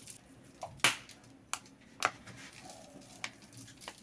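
Small metal mesh sieve of powdered sugar being tapped to dust it over pastries: about five sharp light taps, the loudest about a second in.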